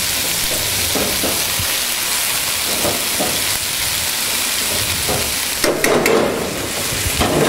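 Fettuccine sizzling in a frying pan of rabbit ragù as it is lifted in with metal tongs and tossed, a steady hiss with soft knocks of tongs on the pan. About six seconds in, a short clatter of metal as the pan goes back down on the gas burner.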